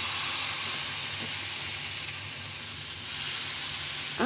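Dosa batter sizzling on a hot iron tawa as it is spread out with a ladle: a steady hiss.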